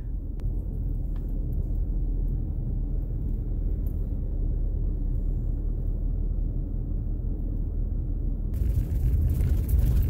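Steady low engine rumble of a pickup truck, heard from inside its cab. About eight and a half seconds in it turns to a louder, hissier driving sound of tyres and wind.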